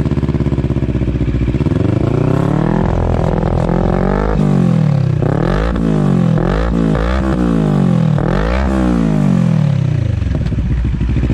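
Motorcycle engine revved through a Villain Carbon aftermarket muffler with heat guard in a sound test. It idles, rises in one slow rev and falls back, then takes a quick run of sharp throttle blips, and settles back to idle near the end.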